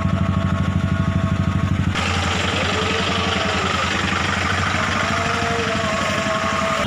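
A motorcycle engine idling close by with a fast, even throb. About two seconds in, the sound switches abruptly to a steady hiss over the low hum of engines idling in stopped traffic.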